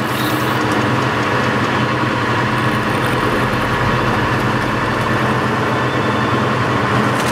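Boat engine running steadily, an even motor hum.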